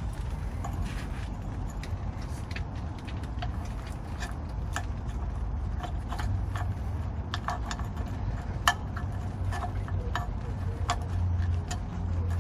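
Scattered light clicks and taps of rubber hoses and fittings being handled and pushed back into place around an engine's valve cover, with one sharper click about nine seconds in, over a steady low hum.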